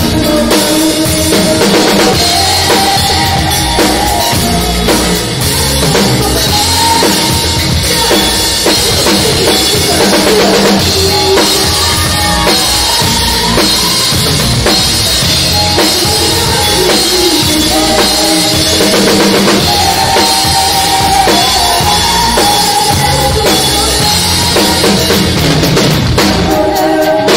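Live band playing a funk-pop cover, with the drum kit up front: kick drum, snare and cymbals driving a steady groove, and the rest of the band's sustained instruments behind.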